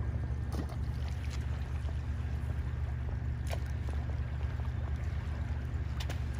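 Fast-flowing creek water rushing steadily, with a heavy low rumble of wind on the microphone and a few faint brief clicks.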